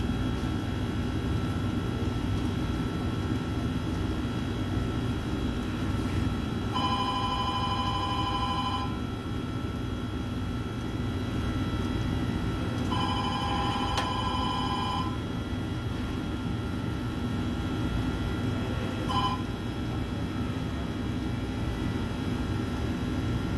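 Steady low machine hum, with a telephone ringing twice, each ring about two seconds long, then a brief third ring that cuts off short.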